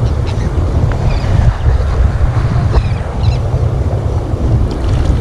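Wind buffeting the microphone in a loud, steady low rumble, over the wash of shallow surf around the waders' legs.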